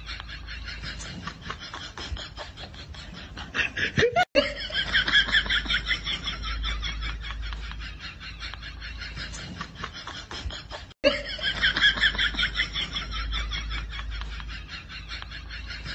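High-pitched laughter in quick, rapid pulses. It swells loudest just after a brief cut-out about four seconds in, and again the same way about eleven seconds in.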